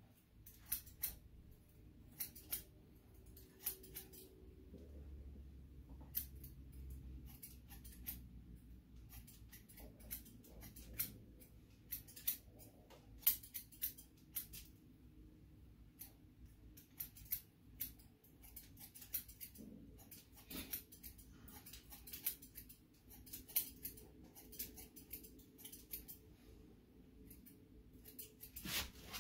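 Barber's scissors snipping hair: faint, quick, irregular snips.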